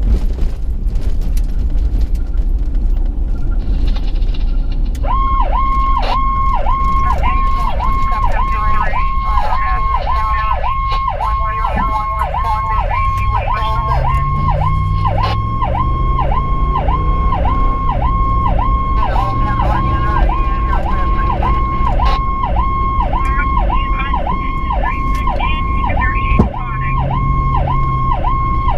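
Electronic emergency-vehicle siren heard from inside the responding vehicle, switching on about five seconds in and cycling about twice a second, with a faster warble for a few seconds, over the vehicle's engine, which rises in pitch as it accelerates.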